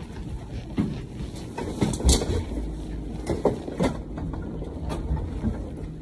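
Several knocks and clunks inside an elevator car, the loudest about two seconds in, over a low steady rumble.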